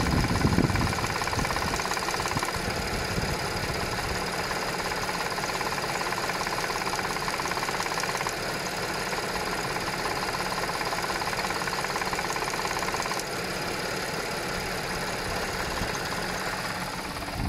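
Audi 3.0 TFSI V6 engine idling after a cold start, with a fast rattle that comes and goes. The owner suspects a failing upper driver's-side cam chain tensioner.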